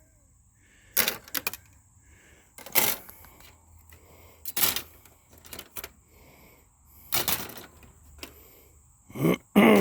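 Computer circuit boards and expansion cards being handled and set down: a string of separate sharp plastic-and-metal clacks a second or so apart, with a louder scrape that falls in pitch near the end.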